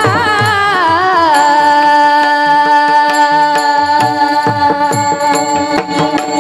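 Marathi kirtan music: a girl's voice sings a wavering, ornamented phrase, then holds one long steady note, with drum strokes underneath.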